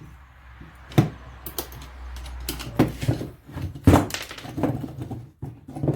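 Tools and metal parts knocking and clattering as an old washing-machine electric motor is taken apart by hand, a series of sharp knocks with the loudest about a second in and near four seconds.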